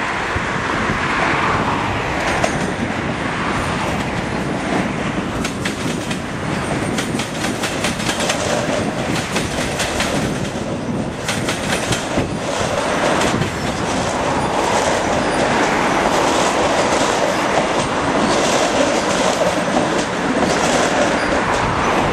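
Two Melbourne suburban electric trains passing each other on adjacent tracks, running with a steady rumble. A run of clickety-clack from the wheels over the rail joints comes through the middle as they pass.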